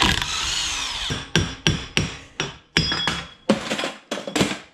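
DeWalt cordless impact wrench running for about a second, undoing a bolt that holds the brake disc to the hub. Then a string of about a dozen sharp metal clanks and knocks, some ringing briefly.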